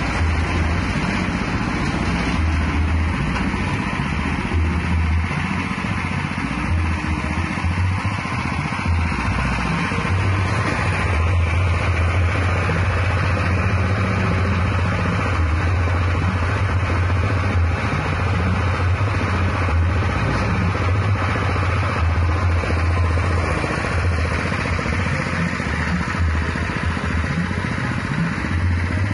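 Small petrol engine running steadily, driving a horizontal ribbon-blade feed mixer, with a strong low hum.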